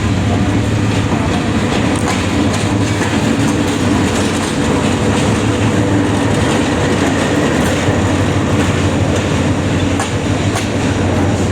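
A train running on the rails: a steady, loud rumble with wheel clatter and occasional sharp clicks.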